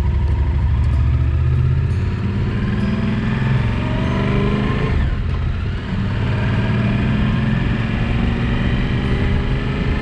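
Yamaha Ténéré 700's parallel-twin engine pulling away and accelerating. Its pitch climbs, dips about five seconds in as it shifts gear, then climbs again.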